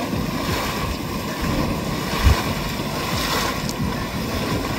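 Hot spring water churning and surging, a steady low rumble with irregular sloshing pulses and one heavier thump a little past two seconds in.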